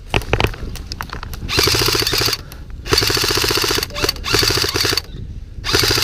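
Airsoft electric gun firing full-auto bursts, a fast even rattle of shots. There are four bursts of about a second each, after a few single clicks in the first second.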